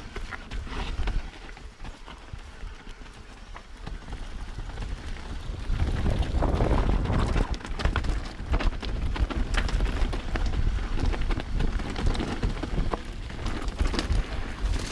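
Mountain bike riding fast down a wet, muddy forest singletrack: a steady rumble of tyres over dirt and roots with many sharp rattles and knocks from the bike. It grows louder about six seconds in.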